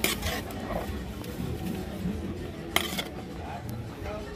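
A metal ladle stirring a pot of greens in an aluminium cooking pot, scraping and knocking against the pot, with two sharp clinks of metal on metal, one right at the start and another nearly three seconds in.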